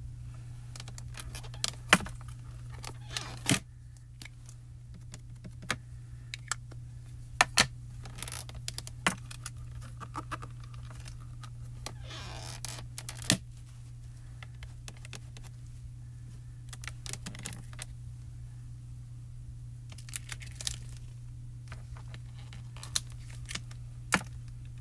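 Irregular sharp plastic clicks and taps from rubber-stamping work: clear photopolymer stamps, plastic ink pad cases and a hinged stamping platform handled on the work table. About a dozen louder clicks stand out over a steady low hum.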